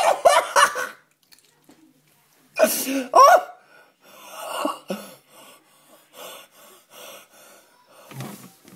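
A man's wordless vocal outbursts, cough-like laughing and gasping, loud at the start and again about three seconds in, followed by quieter short sounds repeating about three times a second.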